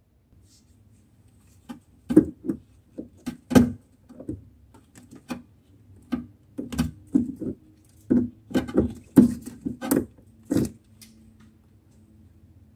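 Irregular sharp clicks and knocks of a screwdriver working at the metal fuel-tap fittings of a Vespa LX 125 while loosening its dried, cracked fuel hoses. There are about twenty taps over several seconds, and they stop near the end.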